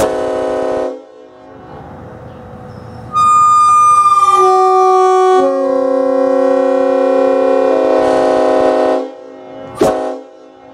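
Multi-chime locomotive air horn blown on compressed air. It gives a short blast, then a long one about three seconds in whose chime notes come in one after another before settling into a full chord for about four seconds and cutting off sharply, then a brief toot near the end.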